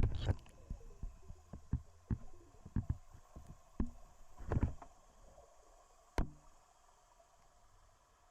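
A dozen or so irregular knocks and dull thumps over a faint hiss, loudest right at the start and about four and a half seconds in, with a sharp click about six seconds in.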